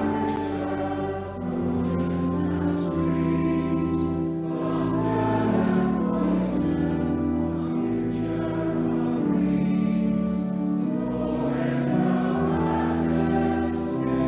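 Choir singing a slow hymn to organ accompaniment, in sustained chords that change every second or so.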